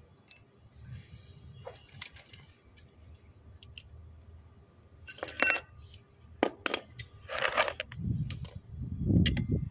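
Small metal clinks and clicks of hand tools on a pump's steel shaft and cast casing as circlip pliers work at the shaft end, a handful of sharp strikes with the loudest about five and seven and a half seconds in. A low rumbling noise comes in near the end.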